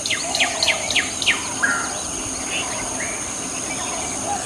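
Wild birds calling, with a run of quick, sharply falling chirps in the first second and a half and scattered calls after, over a steady high-pitched insect drone.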